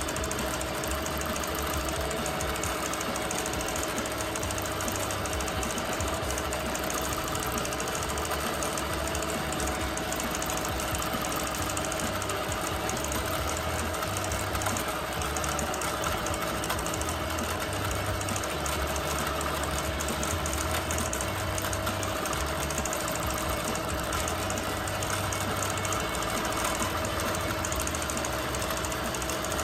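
Bernina Q24 longarm quilting machine stitching continuously: a fast, even needle rhythm over a steady motor hum.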